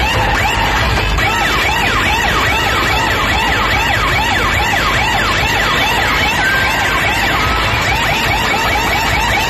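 A large DJ sound system playing loudly. A siren-like sound effect repeats in fast rise-and-fall sweeps, about three or four a second, over a heavy bass rumble.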